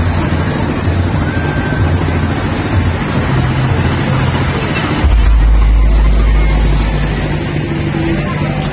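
Loud, steady low hum and noise of a night-market fairground. About five seconds in, a sudden deep rumble of wind on the microphone lasts about two seconds.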